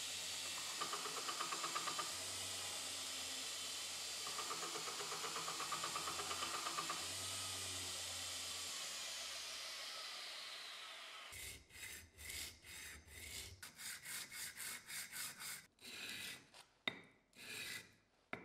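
Belt grinder running with a steel blade pressed against the abrasive belt in two rasping spells, then the belt spinning down over a few seconds. About halfway through it gives way to hand sanding: rubbing strokes on an abrasive block, about two a second.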